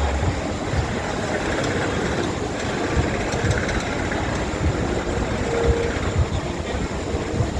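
Roller coaster train of The Big One running along its track, a steady rumbling rush with wind noise over the microphone.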